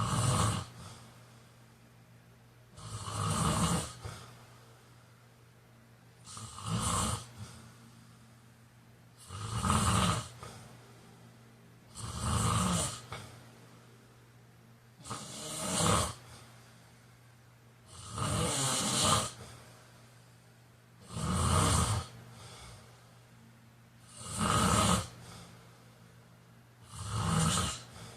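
A man snoring in a slow, regular rhythm, one snore about every three seconds, each lasting about a second.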